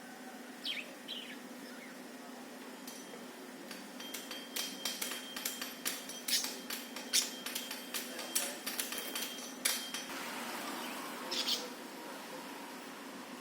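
Budgerigar giving a few short chirps near the start and again near the end, with a rapid run of sharp clicks and taps lasting several seconds in the middle.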